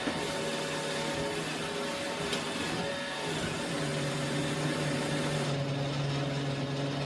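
Robot vacuum running, a steady motor hum with several held tones over a hiss; the high part of the hiss drops away about five and a half seconds in.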